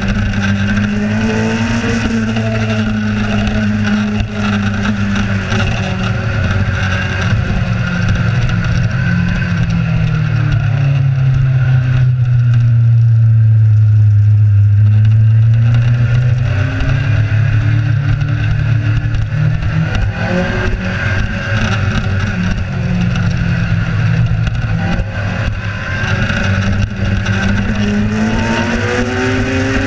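Kawasaki Z1000 inline-four engine running under way, with a steady rush of wind noise. The revs fall away about a third of the way in, stay low for a few seconds, then climb again through the rest of the run.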